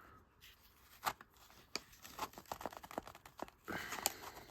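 Lighter packaging being handled: scattered light clicks and taps, with a patch of rustling and crinkling near the end.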